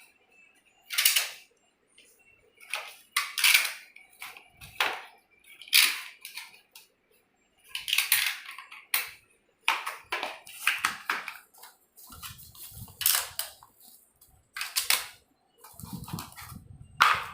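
Irregular rustling and clattering as vacuum cleaner attachments and their packaging are handled and unpacked, with short bursts about once a second.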